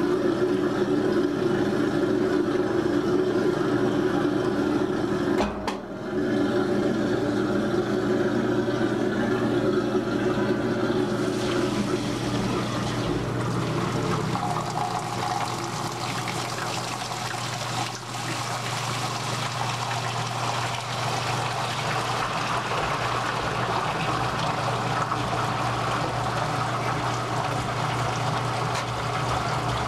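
1949 Maytag AMP automatic washer being advanced into its spin-drain: the motor hums, with a brief drop about five seconds in. From about twelve seconds in, water rushes as the spinning tub throws it up and over into the outer tub while the drain pump runs.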